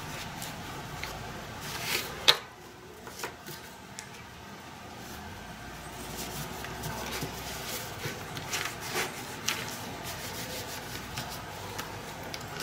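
A rivet being forced by hand through a punched hole in nylon collar webbing: rubbing and scraping of the strap, with scattered small clicks and one sharp click about two seconds in.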